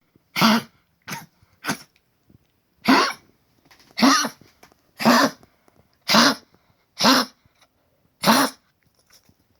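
A dog coughing, nine coughs about a second apart. The owner says the cough comes from a collapsed trachea, and the dog also has stage 3 congestive heart failure.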